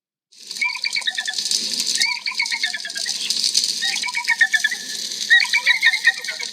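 Creature sound effect: a steady rattling hiss with four bursts of quick, high chirping trills over it.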